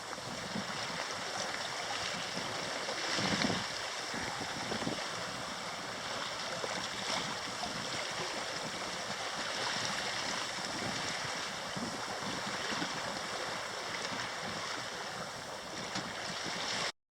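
Water rushing and splashing along the hull of a sailing yacht under way, with some wind on the microphone: a steady hiss with a few brief ticks that cuts off suddenly near the end.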